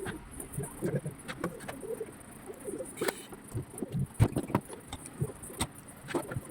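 A dove or pigeon cooing in the background, with scattered sharp clicks and knocks throughout.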